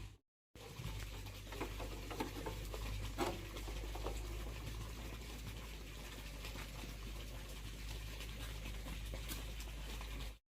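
Faint scattered clicks and light scratching over a steady low hum, broken by a moment of dead silence just after the start.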